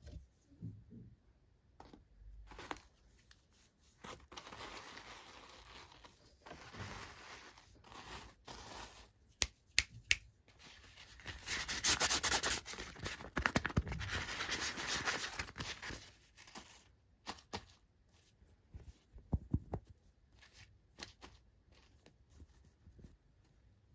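Packaging being torn open and crinkled by hand, with scattered small clicks and taps; the longest, loudest tearing comes about halfway through.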